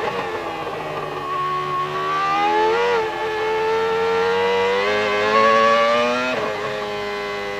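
Arrows-Hart 3.0-litre V10 Formula One engine heard from onboard the car. Its note falls at first as the car slows, then climbs with a brief kink about three seconds in. It drops sharply on an upshift about six and a half seconds in and then holds steady.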